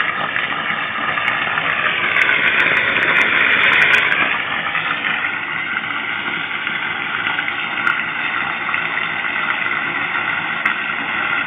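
Rainwater pouring steadily from a drainpipe, a continuous rush that swells for a moment about two to four seconds in.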